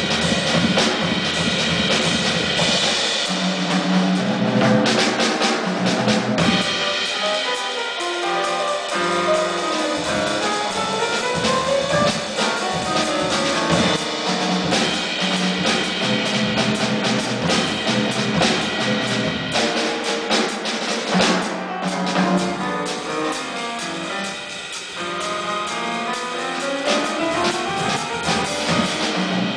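Jazz music played live: a drum kit with pitched instruments, running through quick rising runs of notes several times.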